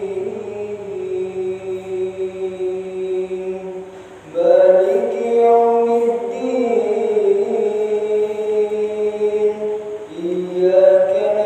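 A young imam's melodious voice reciting the Quran aloud during prayer, in long, drawn-out chanted phrases. One phrase fades out about four seconds in, and the next begins after a brief pause.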